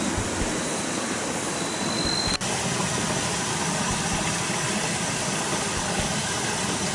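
Steady rushing hiss of a hill stream running over rocks. Just before an abrupt cut about two seconds in, a thin high whine is heard.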